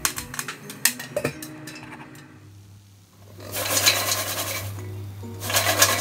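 Popcorn kernels popping in a covered pot, scattered sharp pops in the first two seconds. After a short gap, a dense rattling rustle of popped popcorn tumbling in a metal bowl, in two bursts about four and six seconds in.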